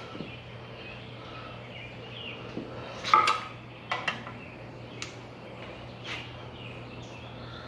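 Metal tools and parts being handled, with several sharp clinks and clanks, the loudest about three seconds in, over a steady low hum.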